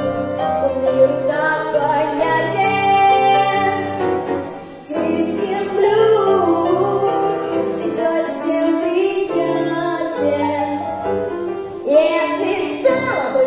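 A girl's voice singing a children's blues song over piano accompaniment, with the voice gliding up and down over the chords.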